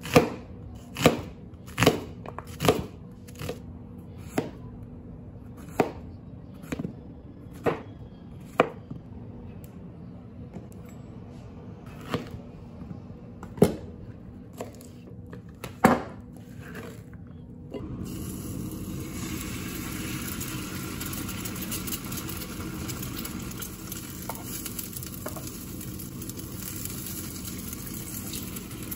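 Kitchen knife chopping an onion and a courgette on a plastic cutting board: sharp knocks of the blade at uneven intervals. About two thirds of the way in this gives way to a steady sizzle of an egg frying in oil in a non-stick pan.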